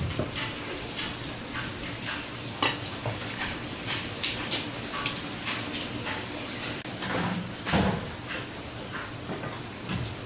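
Knife cutting a large Spanish mackerel into steaks on a cutting board: scattered short clicks and knocks of the blade through the fish and against the board, the loudest a little before the end. A thin steady hum runs underneath.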